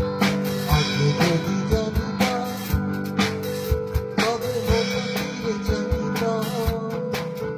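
Band jamming rock music: guitar over a drum kit keeping a steady beat.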